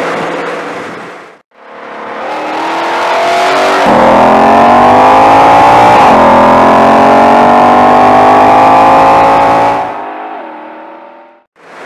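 Ford Shelby GT500's supercharged 5.2-litre V8 accelerating hard, its note climbing steadily, with a quick upshift about six seconds in that drops the pitch before it climbs again. Near the end the throttle lifts and the note falls away. A separate stretch of engine sound fades out in the first second and a half.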